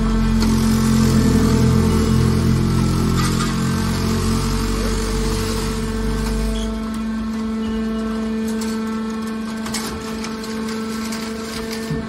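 Hydraulic scrap-metal baler's electric motor and pump running with a steady hum, under load with a deep rumble while the ram pushes the compressed bale out of the chamber. The rumble drops away about six seconds in, leaving the hum, with a few light clicks near the end.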